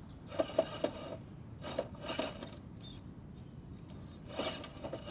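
Radio-controlled rock crawler working over an obstacle: tires scraping and rubbing on the surface, with a quick run of three clicks about half a second in and scattered scrapes after.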